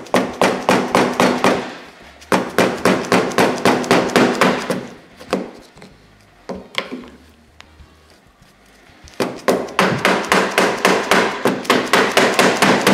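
Rapid mallet blows, about five a second, striking a spare piece of slider to drive a new Hyfax slider along a snowmobile suspension rail. The blows come in three runs with short pauses and a couple of single knocks between them.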